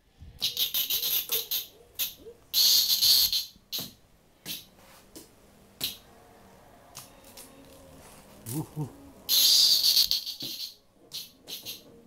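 A cicada giving short, loud buzzing bursts as it flies about: three of about a second each, with lighter clicks and rattles between.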